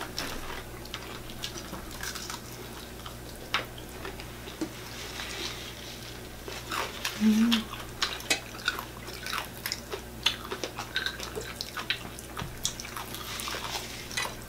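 Close-miked eating of crispy fried chicken: chewing and crunching with wet mouth smacks, heard as many short irregular crackles and clicks. A brief hummed "mm" comes about seven seconds in.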